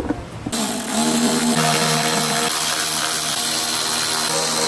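A power tool's electric motor running steadily with a whining hum, starting abruptly about half a second in.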